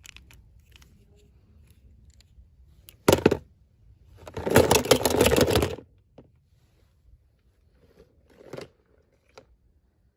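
Toy packaging being handled: a short rustle about three seconds in, then about a second and a half of crackly tearing or crinkling, and a brief rustle later.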